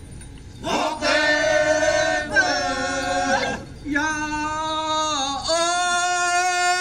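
Group of Phom Naga men chanting in unison, holding long steady notes in three phrases. The first phrase begins about a second in, and each phrase opens with a short upward slide.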